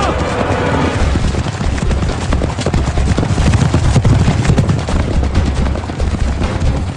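A team of chariot horses galloping, with dense, rapid clattering hoofbeats over a steady low rumble.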